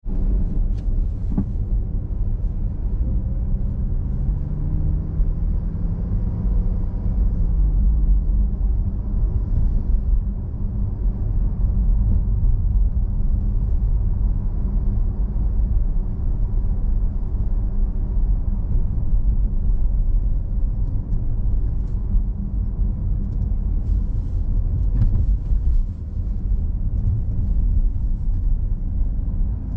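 A car driving: steady low rumble of engine and road noise, with an engine tone rising in pitch a few seconds in as it picks up speed.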